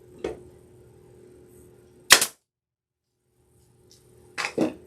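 Pneumatic brad nailer firing into pine: a light shot just after the start and a loud sharp one about two seconds in that cuts off abruptly, then two quick knocks near the end.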